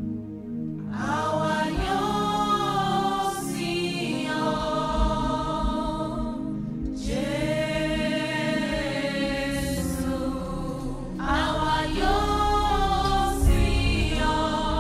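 Church choir singing a gospel worship song in long held phrases over a steady instrumental accompaniment.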